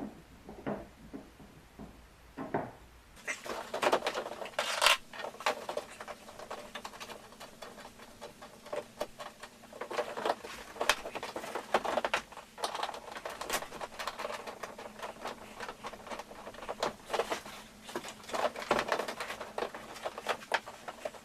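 Hands handling parts and tools during a repair: irregular clicks, scrapes and rustles. A few scattered clicks come first, then about three seconds in the clicks and scrapes turn frequent, with the loudest knocks soon after.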